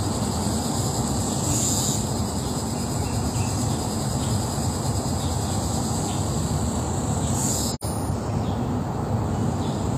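A steady low rushing noise, with a high, even insect chorus shrilling above it that swells now and then; the sound cuts out for an instant near the end.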